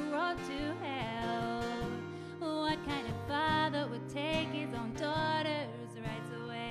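Live pop-country song: a woman sings, her voice sliding between notes, over a strummed acoustic guitar.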